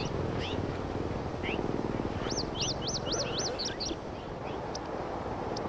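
A songbird singing a quick run of about six looping, rising-and-falling whistled notes about two seconds in, with scattered single chirps around it, over a steady background hiss.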